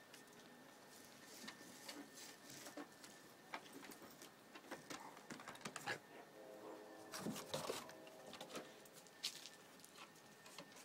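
Faint scratching, rustling and clicking as dogs paw, nose and tug at a fabric dog bed on a wooden deck. About six and a half seconds in, a dog gives a short pitched vocal sound lasting about a second.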